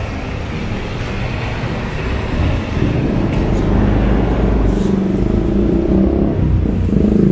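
Street traffic: motor vehicles running past close by, a low rumble that grows louder about halfway through.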